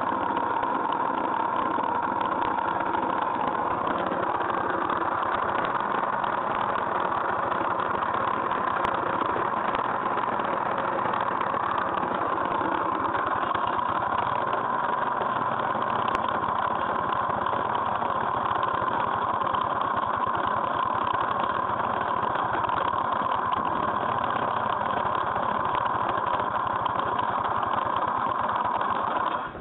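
50cc GY6 scooter engine running steadily at idle, making the noise that its owner takes for a problem; the cause is not diagnosed. It cuts off abruptly near the end.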